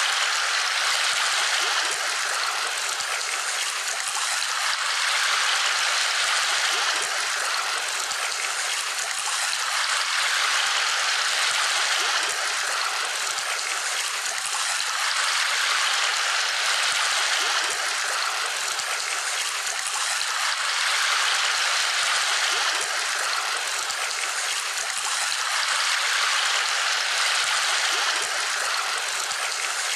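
Steady rushing of a flowing stream, swelling and easing about every five seconds.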